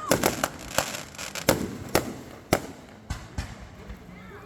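Fireworks going off: a quick string of sharp bangs at the start, then single bangs about every half second, thinning out toward the end.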